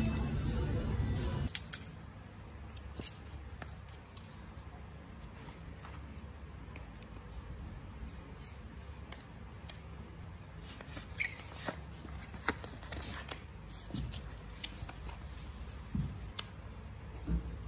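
Scissors snipping through cardboard packaging, with scattered sharp snips and paper handling. Background music drops away about a second and a half in.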